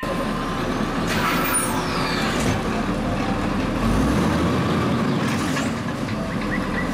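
Automated side-loading garbage truck running steadily while its arm grabs a wheeled trash cart and lifts it to tip into the hopper.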